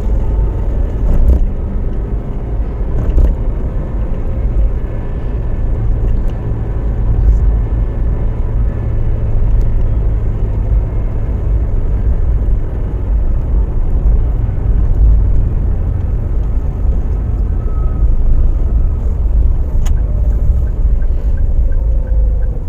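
Car driving along a road, heard from inside the cabin: a steady low engine and road rumble.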